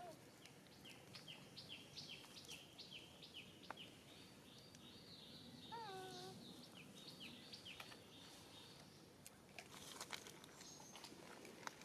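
Faint outdoor ambience with a bird chirping, a run of short high falling chirps at about two to three a second, and one brief wavering call about halfway through.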